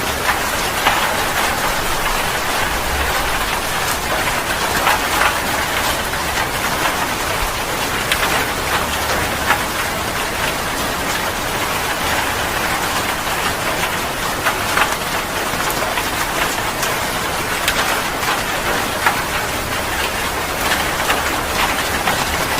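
Heavy rain falling steadily, with many separate drops striking a surface in a dense, even spray of small hits.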